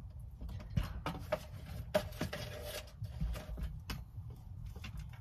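Small plastic clicks and rustling of hands handling a smart plug, outlet adapter and power cords, with a few sharper clicks about one, two and four seconds in.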